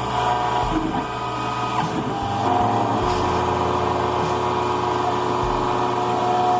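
CNC key-cutting milling machine running with its lid shut while it cuts the second side of a Honda laser-cut key blank: a steady motor hum with several whining tones that start, stop and shift in pitch every second or two as the cutter and carriage move.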